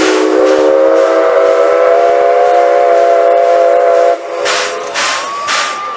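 Steam whistle of the C11 207 steam locomotive sounding one long, steady blast of about four seconds. After it cuts off, rhythmic hissing puffs of steam come back, a little over two a second.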